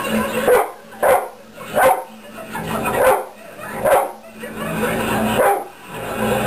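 A dog barking repeatedly, about seven barks roughly a second apart, with television sound underneath.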